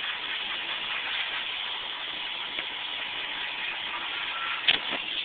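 A steady hiss, with one sharp knock near the end.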